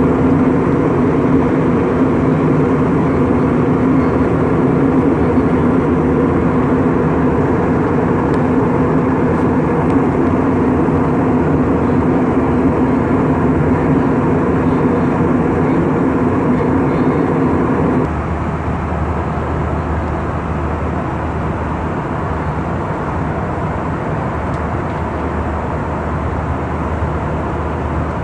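Steady roar of a jet airliner in flight heard inside the cabin: engine and airflow noise. About two-thirds of the way through the sound changes abruptly to a slightly quieter, deeper drone.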